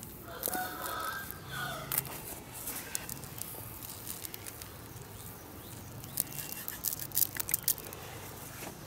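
Granular fertilizer sprinkled by hand onto potting soil, the granules landing as scattered light ticks that come thickest near the end.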